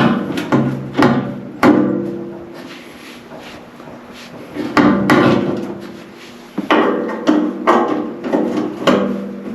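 Sharp metal knocks with a short ringing decay. Hand tools strike and work against a tight, seized nut and bolt on a garden tractor. There are four knocks in the first two seconds and two more near five seconds, then a quicker run of about seven from six and a half seconds on.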